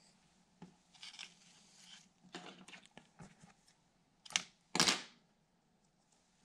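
Crinkly rustling as a packet of gold Polar Flash tinsel is handled, with two louder, sharper rustles between four and five seconds in.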